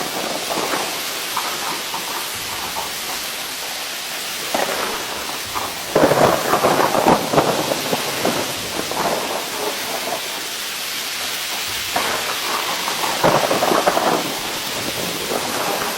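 Heavy rain falling in a steady hiss, coming down harder in two surges, about six seconds in and again around thirteen seconds.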